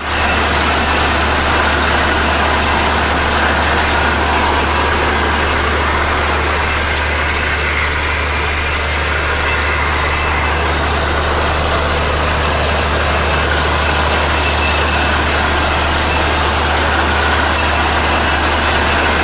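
Water-well drilling rig running hard with a steady, loud low drone, under a continuous rushing noise of water blowing out of the borehole casing as the well is struck and flushed.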